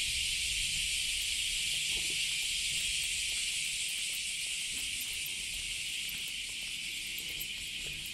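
Steady high-pitched insect chorus: an even, unbroken hiss that slowly fades a little, with a faint low rumble underneath.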